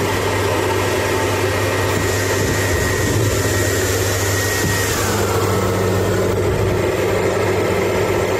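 Hair dryer running off a power inverter, together with the inverter's cooling fans, in a steady loud whir. About five seconds in, a whine drops to a lower pitch.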